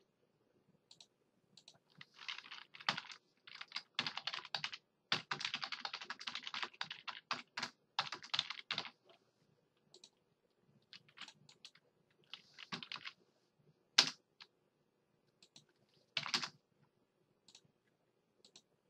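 Computer keyboard typing: a quick run of keystrokes through the first half, then scattered single key presses, with one sharper, louder click about three-quarters of the way through.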